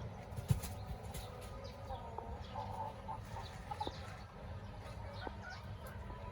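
Chickens clucking, a run of short clucks in the middle, over a steady low rumble; a single knock about half a second in.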